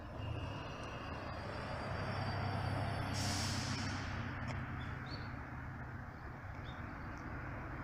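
Large tour coach's diesel engine running low as the bus manoeuvres, swelling for a couple of seconds, with a short hiss of air brakes a little past three seconds in.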